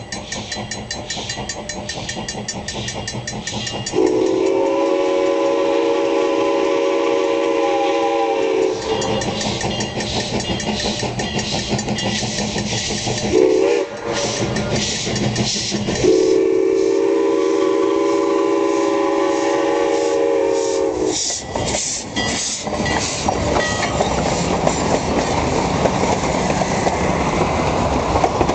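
Denver & Rio Grande Western K-27 "Mudhen" narrow-gauge steam locomotive sounding its steam whistle for a grade crossing: a long blast, a short one, then another long one. Under the whistle the engine's exhaust beats steadily and the train's wheels clatter on the rail joints.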